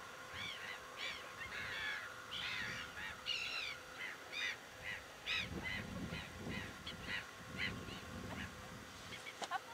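Whooper swans calling: a steady run of short honking calls from several birds, overlapping, two or three a second, each call rising and falling in pitch.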